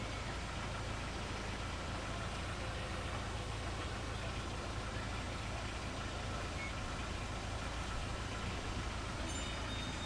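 Wind blowing steadily through leafy trees, with a low rumble of wind on the microphone.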